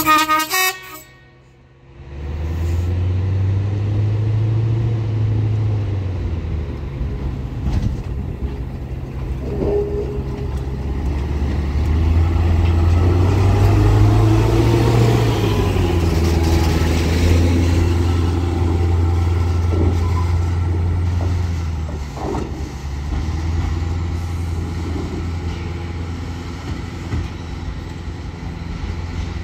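Three short horn toots from a diesel rail maintenance machine (an 08-4x4/4S-RT tamper in use as a multi-purpose vehicle), followed about two seconds in by its diesel engine as it pulls away. The engine gives a low, steady drone that swells twice as it works up and passes, then carries on more quietly as it moves off.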